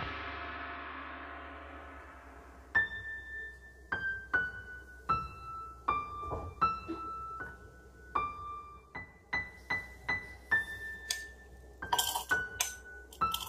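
Background music fades out. A metal spoon or utensil then clinks against a bowl or glass, each strike sharp and ringing at a slightly different pitch, irregularly about once a second and quicker near the end.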